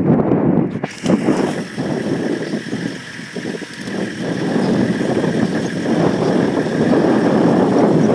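Safari vehicle's engine running steadily, with an uneven rumble.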